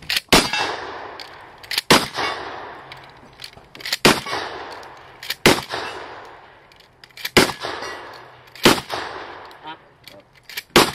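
A steady string of gunshots, about seven, one every one and a half to two seconds, each with a long echoing tail, fired from a revolver and then a rifle. Sharp metallic clangs come in close after some shots, typical of steel targets being hit.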